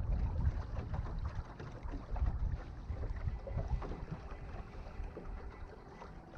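Wind buffeting the microphone over the low rumble of a boat under way, with a faint steady tone coming in about halfway through.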